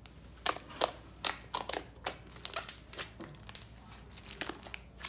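Homemade mixed slime, a little stiff, being kneaded and pressed with the fingers to soften it, giving an irregular run of sharp clicks.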